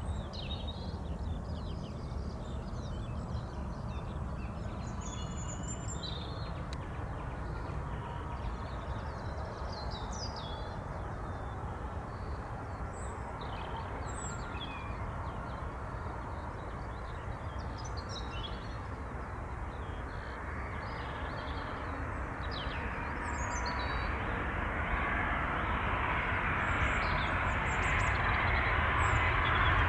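Airbus A330-300 with Rolls-Royce Trent 700 engines on final approach: a low jet rumble that grows steadily louder over roughly the last ten seconds as the airliner nears. Small birds chirp through the first two thirds.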